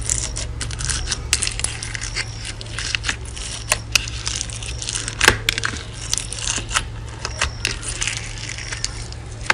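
Slime being squished and pressed by hand, giving a quick, irregular run of crackling clicks and pops over a steady low hum.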